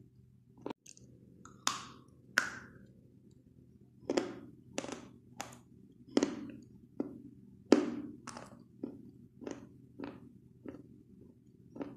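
White blackboard chalk crunching between the teeth as it is bitten and chewed: crisp crunches, a few at first, then a steady run of about one every half to two-thirds of a second.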